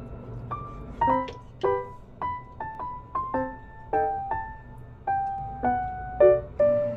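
Background music: a gentle piano melody of single notes, each ringing and fading, about two or three a second.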